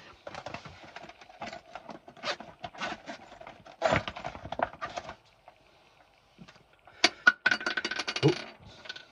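Irregular clicks, taps and light rattles of small hard objects being handled close to the microphone, with a louder run of clicks about seven to eight seconds in.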